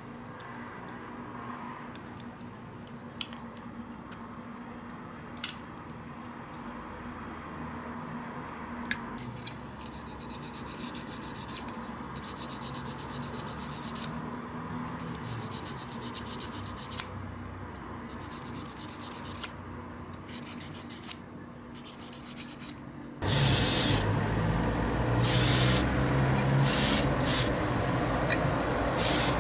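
A knife blade scrapes a small die-cast toy part in runs of quick rasping strokes, with a few light clicks. About three-quarters of the way through it gives way to the louder steady noise of a spray booth's extractor fan, with short hissing bursts from an airbrush.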